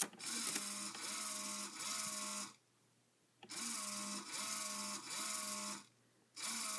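A Lego motor whirring with a strip of tape attached that flaps and rattles as the sounder of a homemade fire alarm. It runs in three bursts of about two to three seconds each, cutting off completely between them, with a steady hum and a short rising tone that repeats about twice a second.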